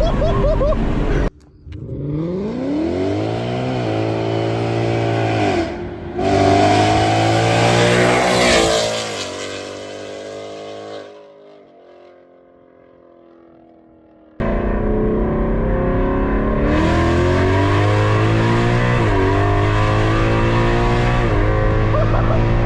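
Ford Mustang GT's 5.0 V8 with Kooks long-tube headers, accelerating hard: revs climb and drop at each gear change, with a loud exhaust. It fades away as the car pulls off, goes quiet for a few seconds, then comes back loud and accelerating again.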